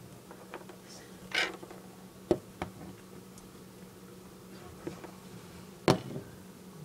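Light clicks and taps of plastic toy horses being moved and set down on the floor: a handful of separate knocks, the loudest about six seconds in, over a faint steady hum.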